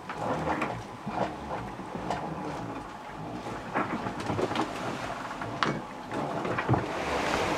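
Sailboat cabin under way: scattered creaks, clicks and knocks from the hull and fittings as the boat rolls, over a low rumble. Near the end a steady rush of wind and sea comes in.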